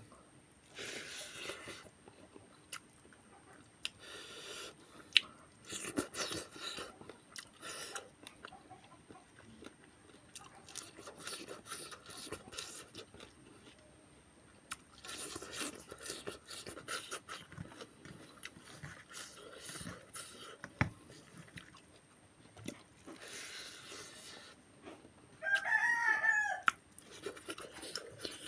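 Eating sounds: repeated short bursts of chewing and crunching. About 26 seconds in there is one loud pitched animal call lasting about a second, like a bird's.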